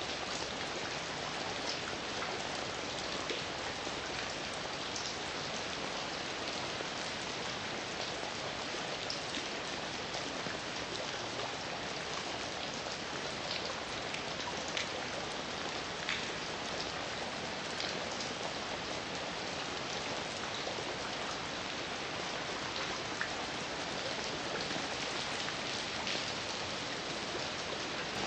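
Heavy rain falling steadily, an even hiss with scattered individual drops ticking on a surface.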